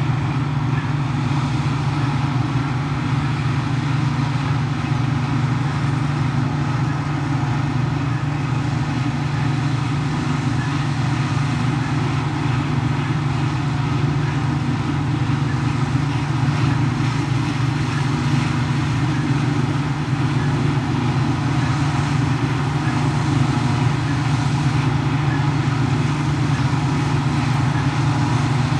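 New Holland FX450 self-propelled forage harvester running steadily under load as it cuts and chops standing wheat for wholecrop silage, together with a New Holland tractor pulling the trailer alongside: a constant low machine drone that holds level throughout.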